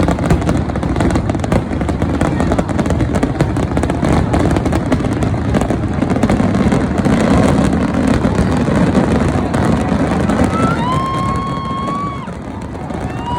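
Fireworks finale: a dense, continuous barrage of bursts and crackling, easing slightly near the end. A high held tone sounds twice near the end.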